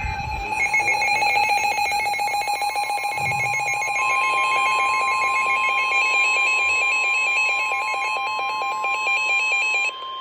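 Emergency Alert System–style attention alarm: a loud, rapidly pulsing electronic tone. About four seconds in, a second steady, slightly higher tone joins it, making a two-tone alarm. The pulsing tone cuts off shortly before the end, leaving the steady tone.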